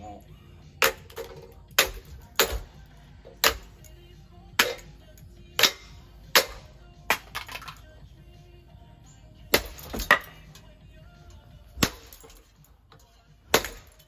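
Ceiling fan being smashed apart: about a dozen sharp cracks and knocks of breaking parts, irregular and roughly a second apart, with a pause in the middle.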